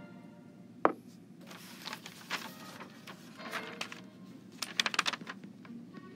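Pen scratching on a writing surface in short strokes while an equation is written, with a sharp tap about a second in.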